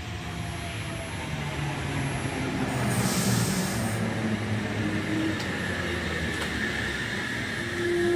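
Four-car Oscar (H-set) electric train starting away from the platform, its motors and wheels building up. A short burst of air hiss comes about three seconds in, then a steady high whine.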